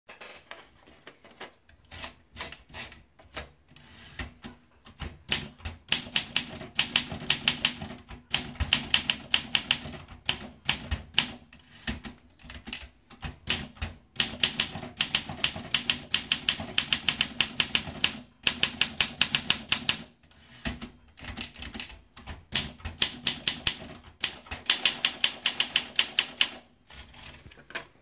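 Olympia SM3 manual portable typewriter. A few scattered clicks as the paper is fed in give way, about five seconds in, to bursts of rapid, sharp keystrokes with short pauses between them.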